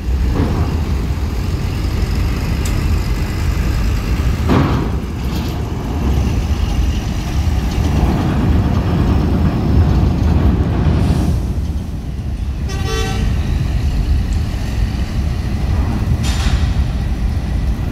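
Bus engines running as buses move up in the boarding queue, with a short horn toot about 13 seconds in.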